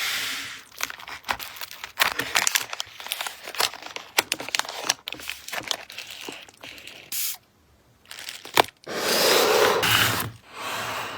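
Packing materials being handled by hand: plastic crinkling and rustling with many small clicks and taps, then near the end two longer tearing sounds.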